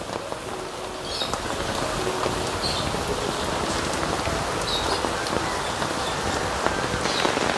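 Steady rain falling on garden plants and surfaces.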